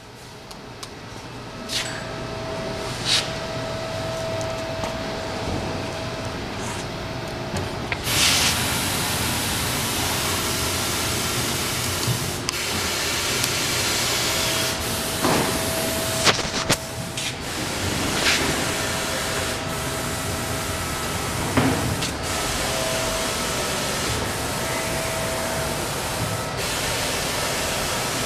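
Steady mechanical running noise with a low hum and a steady whine. A loud, even hiss comes in suddenly about eight seconds in and stays, with a few sharp knocks along the way.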